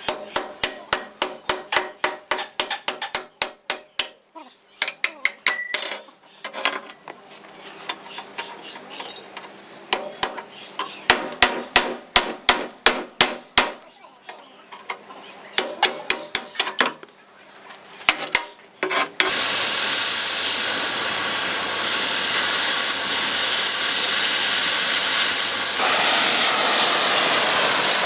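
Hammer blows on the steel of a JCB loader bucket, in quick runs of several strikes a second with short pauses. About nineteen seconds in they stop and a steady loud hiss from the welding and gas-cutting work on the bucket takes over.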